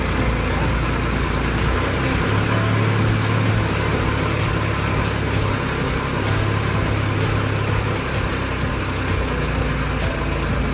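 Tractor diesel engine running steadily while driving a rear-mounted post-hole auger that bores the pit for a copper-plate earthing.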